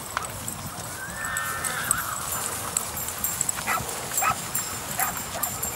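Horses walking past through tall grass, with a steady patter of hoof falls and fine high jingling from their tack. About a second in comes a held, high whining animal call, and a few short sharp calls follow later on.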